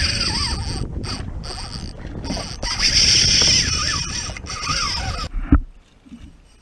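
Spinning reel being cranked close to the microphone, its gears whirring steadily in runs broken by a few short pauses. It stops a little after five seconds in, followed by a single knock.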